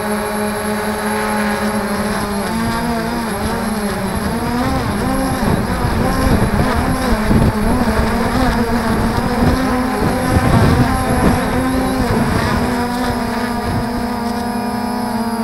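Camera drone's motors and propellers whining: several pitches held steady, then wavering up and down through the middle as the drone manoeuvres, over a low rumble.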